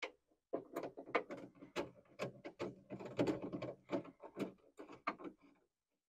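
Hand ratchet with a 10 mm socket clicking in uneven runs, about four clicks a second, with metal handling knocks, as bolts are run in and snugged down.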